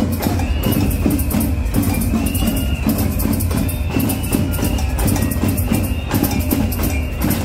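Live band music with a steady percussion beat and jingling, tambourine-like hits over a held high melody line.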